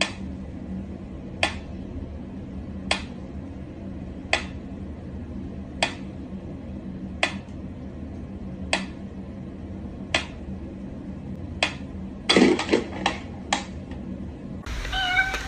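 Mechanical pendulum metronome ticking slowly, one sharp click about every one and a half seconds. A little past twelve seconds a short rattle and a few quicker clicks as a cat paws at the swinging pendulum.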